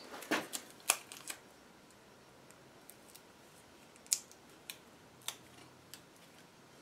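Small sharp clicks and taps of hands working tape onto a valve stem tip on a cylinder head. There is a cluster of them in the first second and a half, then a few single clicks later on.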